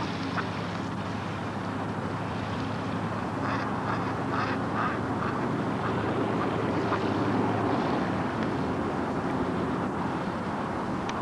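Radio-controlled model PT boat's electric drive running steadily, a hum with a few short, sharp sounds about four to five seconds in. The owner says one propeller needs replacing because its shaft is spinning too fast.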